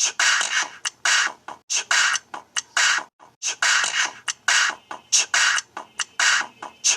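A phone ringtone from the Viper OS custom ROM on a Samsung Galaxy J2 playing a percussive electronic beat of short, sharp noisy hits, several a second in an uneven rhythm.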